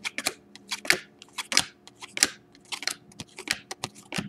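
Glossy Panini Prizm trading cards being flipped one at a time from the front of a hand-held stack to the back, each card giving a short crisp swish and snap, about one every half second.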